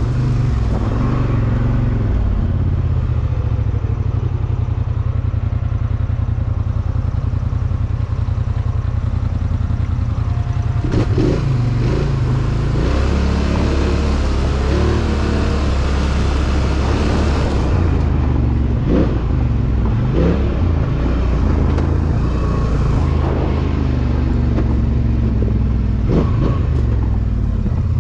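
ATV engine running steadily while riding a trail, its pitch rising and falling a few times as the throttle is worked, with some rattle from the machine.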